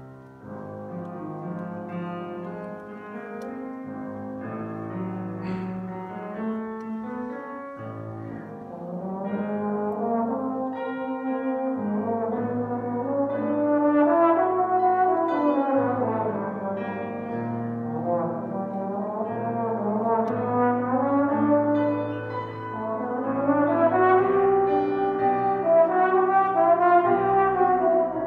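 Trombone playing a classical piece with piano accompaniment, the trombone's line sliding smoothly up and down in pitch in repeated glissandi over the piano's steadier notes.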